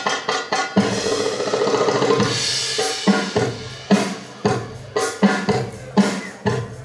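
Darbuka drum solo with a pandeiro: deep low strokes and sharp higher strokes in a quick rhythm, with a bright jingle roll of the pandeiro about two to three seconds in.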